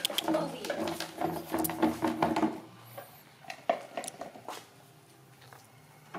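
Plastic basin knocking and scraping on a concrete yard as monkeys tip and push it, a dense clatter for about two and a half seconds, then a few separate sharp knocks.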